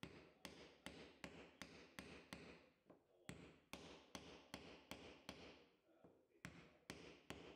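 Hammer striking a piece of wood held against the fuel tank sender unit's locking ring, driving the ring round to tighten it. Faint, short knocks repeat steadily, about two to three a second.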